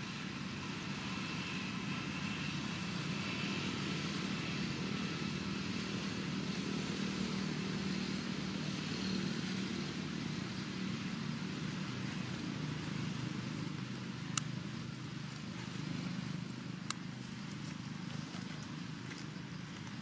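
A steady low engine hum, like a motor vehicle running, with two sharp clicks about two and a half seconds apart, the first about fourteen seconds in.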